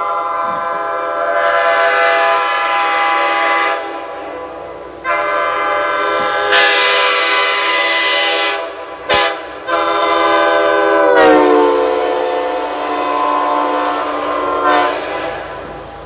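Nathan Airchime K5L five-chime locomotive air horn (ex-BC Rail, square tag), mounted on a pickup truck, blown as a loud chord in long blasts: one of about four seconds, another of about four, a short toot, then a long final blast whose pitch sags partway through.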